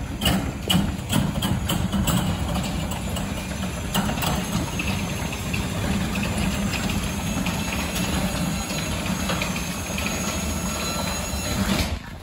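Motorised sectional garage door opening: the opener's motor hums while the door panels and rollers rattle and click along the tracks, stopping abruptly near the end as the door reaches the top.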